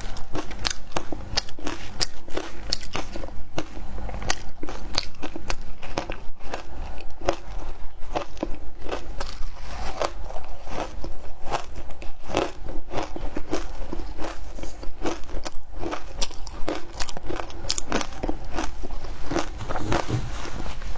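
Matcha-flavoured ice being bitten and chewed close to the microphone: a continuous run of crisp crunches and crackles, several a second.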